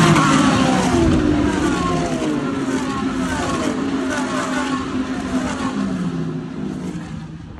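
GT3 race cars passing at speed one after another, each engine note dropping in pitch as the car goes by, overlapping, then fading away near the end.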